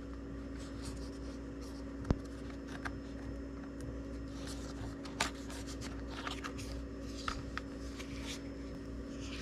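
Hard plastic case and its foam tray being handled: light scrapes and small clicks, with a sharp click about two seconds in and another about five seconds in, over a steady background hum.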